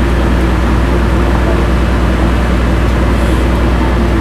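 A ferry's engine running steadily, a loud low hum with a fine, even pulse that does not change.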